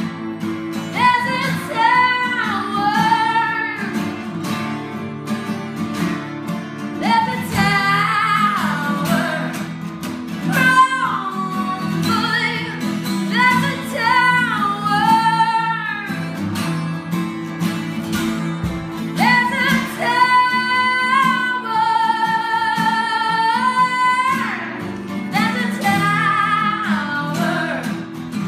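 A woman singing over two acoustic guitars. She sings in short phrases, then holds one long note about two-thirds of the way through.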